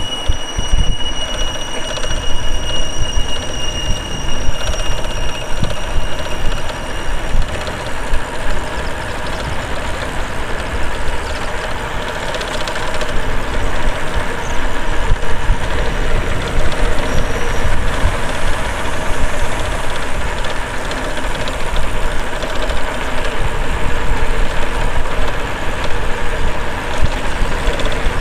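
Wind buffeting the microphone and tyre rumble from a bicycle rolling along a paved road. A steady high squeal sounds over it for the first several seconds, then fades.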